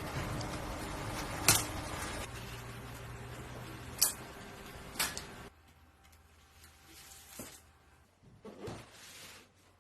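Three sharp clicks or knocks, about a second in, at four seconds and at five, over a steady hum that drops away about halfway. A few faint taps follow.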